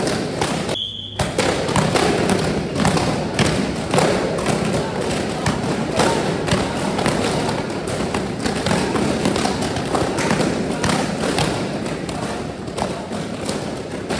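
Taekwondo kicks smacking against handheld kicking paddles, many sharp thuds in irregular succession from several pairs drilling at once, over the chatter of a group of people.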